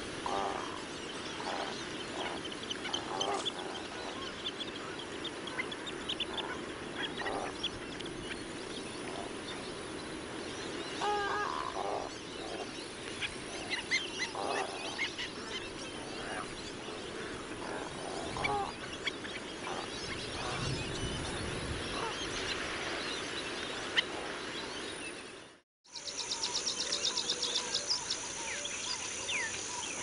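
A flock of shorebirds calling: many short, scattered calls, some rising or falling, over a steady background hiss. The sound cuts out briefly near the end, and a rapid, high trill follows.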